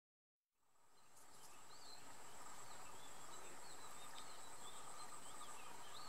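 Silence, then jungle ambience fading in about half a second in: a steady high insect drone over a soft hiss, with many short bird chirps scattered through it.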